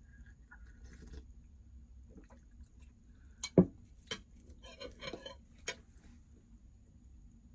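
A metal spoon clinking and scraping against a glass plate while eating: a handful of sharp clinks starting about three and a half seconds in, the first the loudest, with a short run of scraping ticks in the middle.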